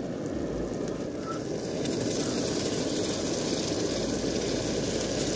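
Hot oil in a metal karahi sizzling as a chopped tomato mixture is spooned in; the sizzle grows louder about two seconds in, over a steady low rushing noise.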